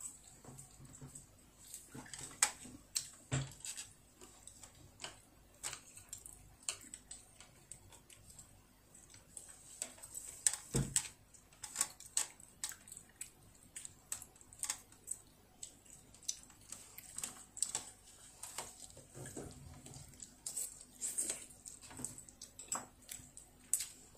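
Chopsticks clicking and tapping against a ceramic rice bowl and tableware while a child eats: scattered light clicks at irregular intervals.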